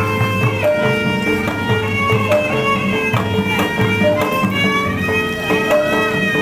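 Betawi ondel-ondel accompaniment music: a high bowed fiddle melody that slides between held notes over steady percussion strikes.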